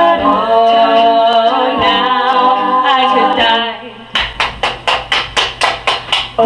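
Women's a cappella group singing in layered harmony. About four seconds in the singing drops out and an even run of about a dozen sharp percussive hits follows, about five a second.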